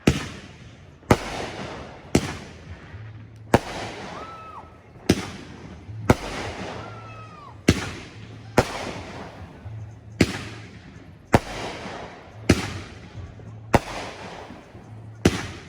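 Fireworks going off: a steady run of sharp bangs about one a second, each trailing off in crackle and echo, with two brief whistles in between.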